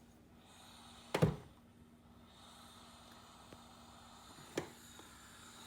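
A sharp click about a second in and a softer one near the end, over a faint steady hum: small metal tools being handled at the bench while a piece of solder is picked up.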